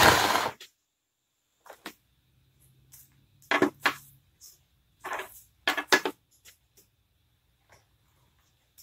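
Clear plastic blister-pack tray crackling and clicking as it is handled: a loud crinkle at the start, then scattered short crackles and clicks.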